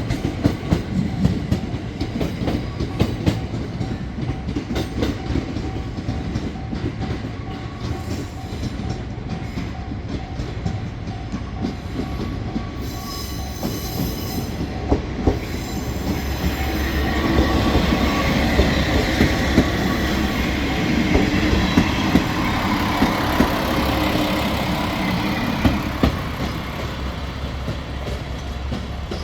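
Train passing on the JR-West line: a steady clickety-clack of wheels over rail joints. It grows louder about halfway through as cars roll by close, with a squealing wheel tone.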